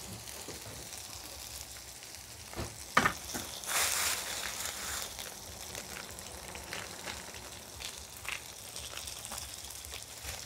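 Pounded galangal, lemongrass, garlic and coriander-root paste sizzling in hot oil in a wok, being fried until fragrant. A few sharp clicks come about three seconds in, and the sizzle swells briefly about a second later.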